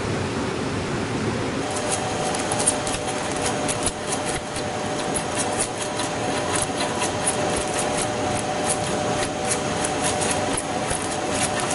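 Heavy metal lathe at work: a steady machining noise with a faint held tone. From about two seconds in, irregular sharp ticks join it.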